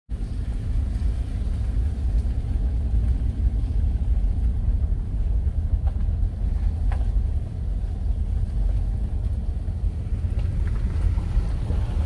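Ford F-150 pickup driving slowly over a dirt forest road, heard from inside the cab: a steady low rumble of engine and tyres on the dirt.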